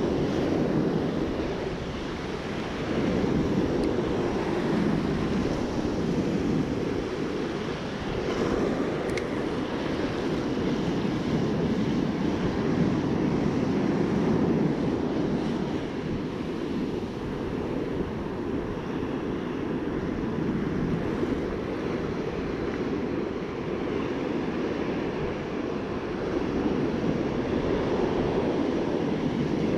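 Rough storm surf breaking and washing up a sandy beach: a dense, steady rush that swells and eases every few seconds as the waves come in. Wind buffets the microphone.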